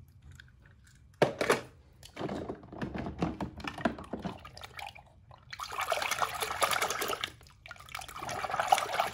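Water splashing and sloshing in a plastic tub as a hand dips die-cast toy cars in and moves them about. There is a sharp splash about a second in, and denser sloshing through the second half.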